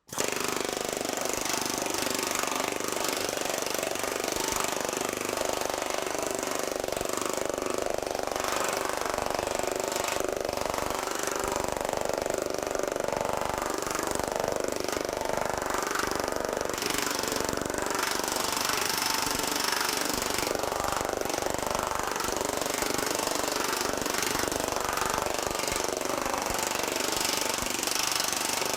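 TM Technologies pneumatic air power hammer running steadily, its shrinking dies rapidly hammering 20-gauge sheet steel as a ruffle is worked down and shrunk into the panel.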